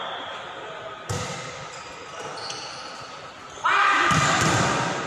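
Volleyball rally in a large echoing sports hall: a sharp smack of a hand on the ball about a second in, then a louder hit near the end as the ball is attacked at the net, followed at once by players shouting.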